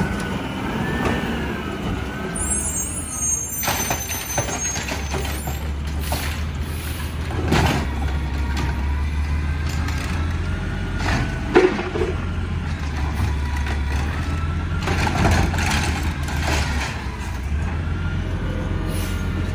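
Peterbilt 320 garbage truck's diesel engine running, picking up speed about five seconds in as the DaDee Scorpion automated side arm lifts a cart and dumps it into the hopper. There is an air-brake hiss about three seconds in, and several bangs from the cart and falling trash, the loudest a little past halfway.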